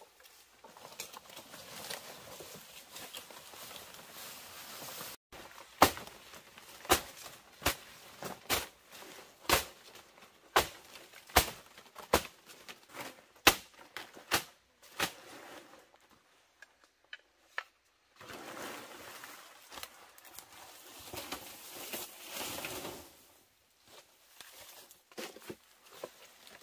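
A run of about a dozen sharp knocks or chops, a little over one a second, between stretches of rustling or scraping, like hand-tool work on wood or bamboo.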